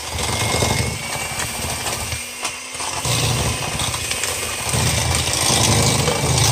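Electric hand mixer running, its beaters churning sugar and a brown-butter mixture in a metal bowl. The low rumble drops out briefly a little over two seconds in, then picks up again.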